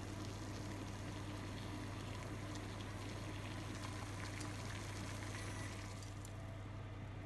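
Water at a rolling boil, bubbling steadily in a stainless steel saucepan, with a low steady hum underneath. The bubbling eases off about six seconds in as the boil subsides.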